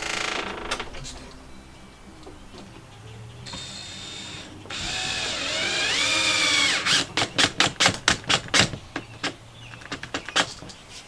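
Cordless drill driving screws into a plywood wall. A short whir at the start, then a longer run about halfway through whose motor pitch rises and falls under load, then a quick string of short bursts near the end as the screw is driven home.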